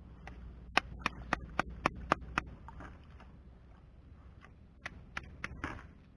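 A quick run of seven sharp knocks, about four a second, then a few weaker knocks near the end.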